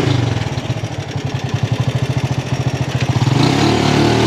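Motorcycle engine of a Philippine tricycle (motorcycle with sidecar) labouring up a steep hill. Its exhaust beats turn into a distinct, rapid pulsing and dip a little in the middle, then pick up again near the end.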